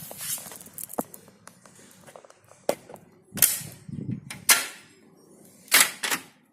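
Sharp plastic clicks and snaps with handling noise between them: an emergency warning triangle's fold-out leg and latch being worked as it is folded up. The louder snaps come about halfway through and near the end.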